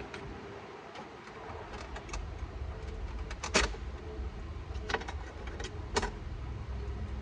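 Scattered sharp clicks and light knocks of plastic dashboard trim and hand tools being handled, the loudest about three and a half seconds in, over a low steady hum.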